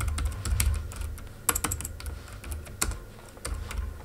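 Computer keyboard typing: irregular quick keystrokes, several a second, with a low hum underneath.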